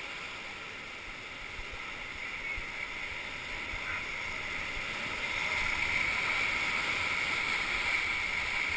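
Rushing whitewater of a river rapid: a steady hiss of water that grows louder about halfway through.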